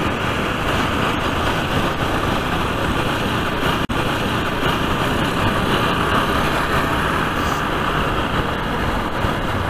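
A motorcycle moving through city traffic: a steady rush of wind and road noise with the engine running underneath, briefly cut by a split-second dropout about four seconds in.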